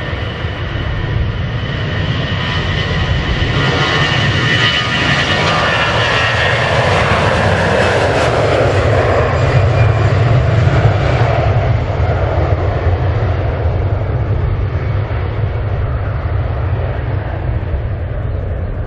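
The twin CFM56 turbofan engines of an Airbus A321-211 at takeoff thrust during the takeoff roll. The jet noise and fan whine build to a peak about halfway through as the aircraft passes. They then fade to a low rumble as it moves away toward liftoff.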